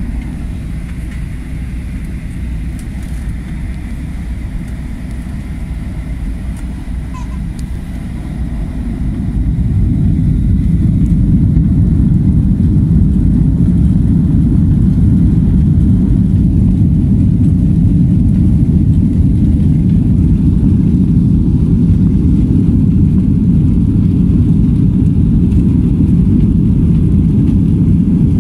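Jet airliner heard from inside the cabin at the start of its takeoff roll: a steady low rumble that swells about nine seconds in as the engines spool up to takeoff power, then holds loud and even.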